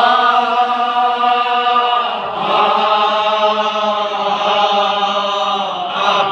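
Kashmiri marsiya, a Shia elegy, chanted by a male voice in the Pahalwani style: two long, drawn-out held notes, with a short break for breath about two seconds in.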